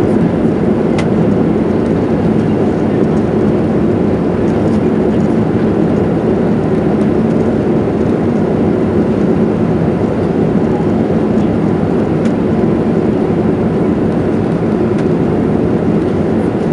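Steady roar of jet engines and rushing air inside the cabin of an Airbus A320 climbing out after takeoff.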